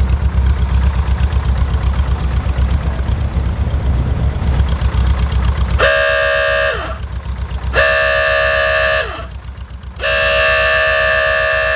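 Vehicle horn in the rear engine bay of an off-road VW Thing sounded in three blasts, honked as a locating signal. The first blast is short and the last two are longer, and each sags in pitch as it cuts off. A low steady rumble comes before the first blast, about six seconds in.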